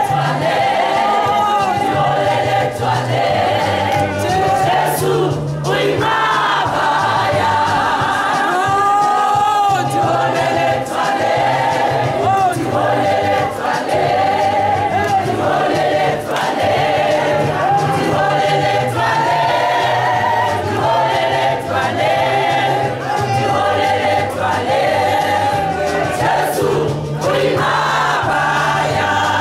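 A large choir of mainly women's voices singing a gospel song together.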